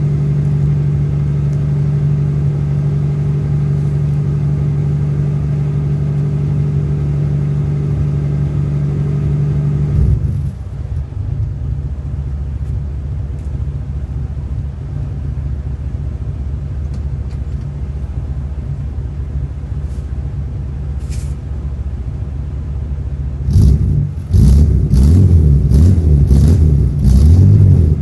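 Chevrolet Opala 4100 inline-six with a 6x2 exhaust, held at a steady raised speed for about ten seconds, then dropping back to idle. Near the end it is revved hard in a string of short, loud blips.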